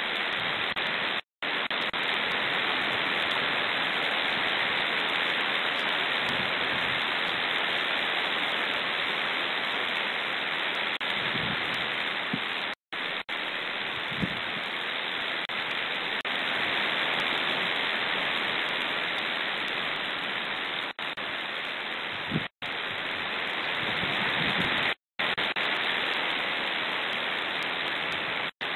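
Strong steady hissing of wind overloading the nest camera's microphone, broken by several brief dropouts to silence.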